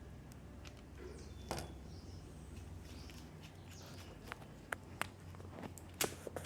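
Scattered light clicks and taps of a small screwdriver and tiny screws as an opened smartphone is screwed back together, the sharpest about a second and a half in and again near the end, over a low steady hum.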